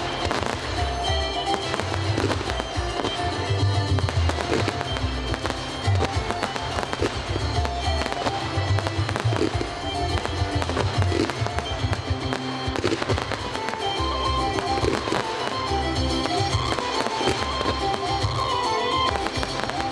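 Aerial fireworks display: a dense, continuous run of bangs and crackling from shell bursts and comets, with music playing underneath throughout.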